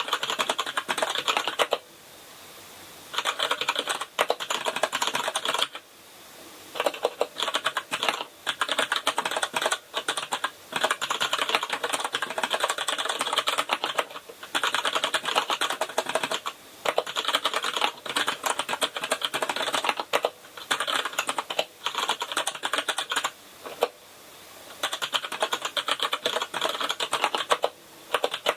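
Kinesis Advantage ergonomic keyboard with Cherry MX Brown tactile switches being typed on: fast, continuous key clicks in runs of several seconds, broken by brief pauses.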